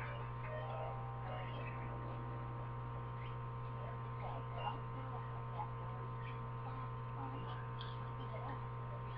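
Steady electrical hum, with faint, indistinct voices and small sounds underneath.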